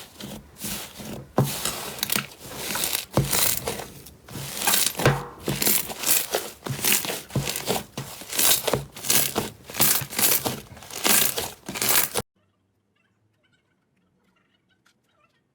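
Slime being pressed and worked, making a run of noisy crackling strokes about one or two a second, which cut off suddenly about twelve seconds in.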